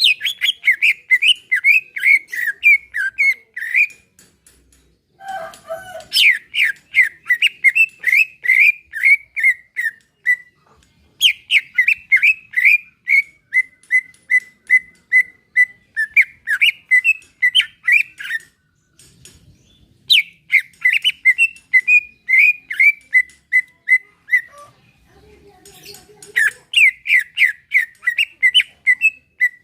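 A green leafbird (cucak ijo) singing in long phrases of fast, repeated chipping notes near one pitch. Each phrase lasts a few seconds, with short pauses between them, about five phrases in all.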